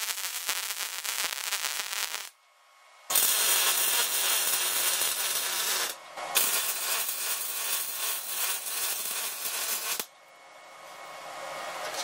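Wire-feed welder arcing on steel: three runs of loud, steady crackling, each stopping suddenly, with short pauses between. Near the end a quieter steady hiss builds.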